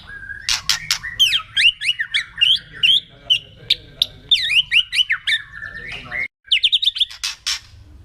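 White-rumped shama (murai batu) singing a fast, varied run of sweeping whistles mixed with sharp clicking notes. This is the agitated 'kretekan' style of song that is played to provoke rival shamas. The sound breaks off for a moment about six seconds in.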